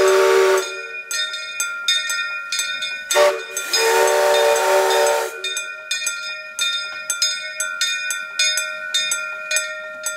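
Henschel steam tank locomotive's whistle: a blast that cuts off about half a second in, then a short toot and a long blast about three to five seconds in. Through it and after it a bell rings with quick, steady strikes, most likely the grade-crossing signal's bell.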